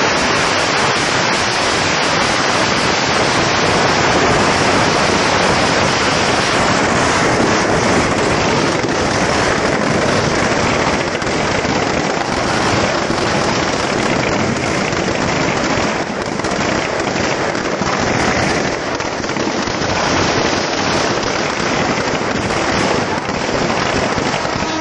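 Dense, unbroken crackling of firecrackers going off inside a burning Ravana effigy, loud and steady throughout.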